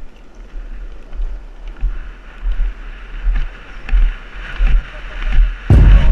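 Wind buffeting the microphone of a camera moving fast downhill, in uneven gusts, over the steady rumble of longboard wheels rolling on asphalt. A loud low burst near the end.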